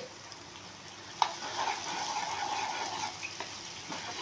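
A steel spoon stirring sizzling chilli-soy gravy in a nonstick wok. There is a sharp tap of the spoon on the pan just over a second in, then a louder stretch of sizzling and stirring for about two seconds that eases off towards the end.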